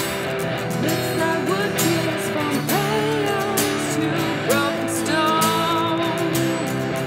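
Background music with guitar and a wavering, gliding melody line.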